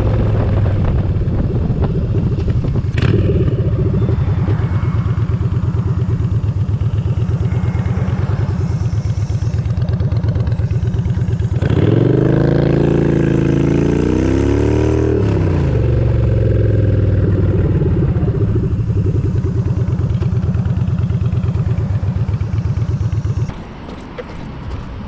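Motorcycle engine running steadily under way. About halfway through, its revs rise and fall for a few seconds, and near the end the engine note drops away sharply as the bike slows to a stop.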